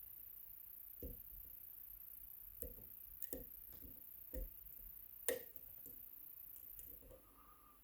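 Faint, irregular small metal clicks of a pick and tension tool working the pins of an Agent LS5 dimple lock, with one sharper click about five seconds in.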